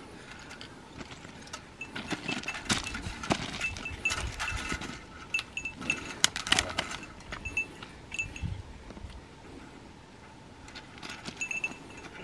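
A small bell on a walking hiker, a bear bell, jingling in short runs with the steps, mixed with footsteps and rustling on the trail. It pauses briefly a few seconds before the end, then starts again.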